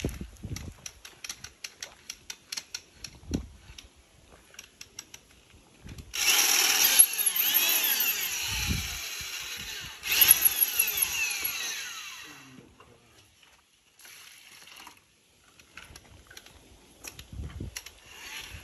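Power drill with a mixing paddle churning a bucket of grey mortar. It runs in two spells of a few seconds each, starting about 6 s in and again about 10 s in, and winds down at the end of the second. Before it come scattered light clicks and knocks.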